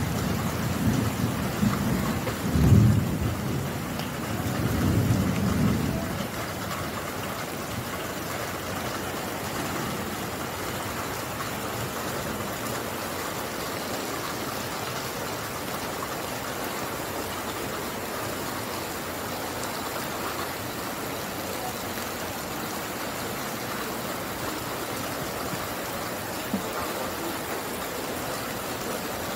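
Rain falling steadily, with low rumbles of thunder through the first six seconds, the loudest about three seconds in.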